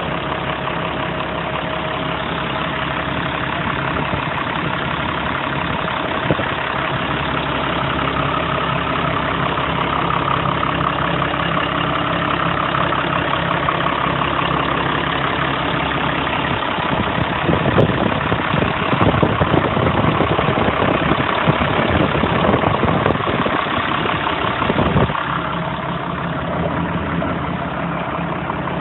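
International 1066 Turbo tractor's 6.8-litre six-cylinder turbo diesel running steadily at idle. It grows louder and rougher for several seconds past the middle, then settles back.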